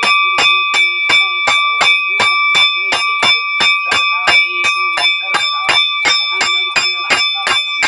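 Hand-held prayer bell (ghanti) rung continuously in quick, even strokes, about three to four a second, its ringing tones carrying on between strikes, as worship at a shrine.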